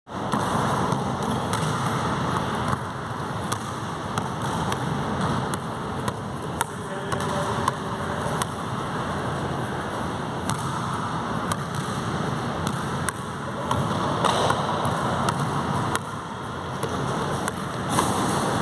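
Steady, echoing gym noise with many irregular sharp taps and thuds: sneakers striking the court and basketballs bouncing on it.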